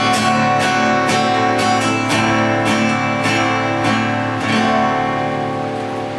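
Acoustic guitar strumming chords in an instrumental passage, roughly one stroke every half second. The last chord, struck about four and a half seconds in, is left ringing and fades away.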